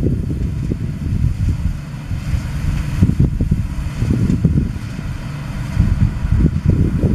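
Claas Dominator 96 combine harvester running, with wind buffeting the microphone in uneven low gusts.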